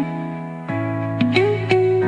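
Background music of plucked guitar notes that ring on, a new note struck about two thirds of a second in and a few more near the end.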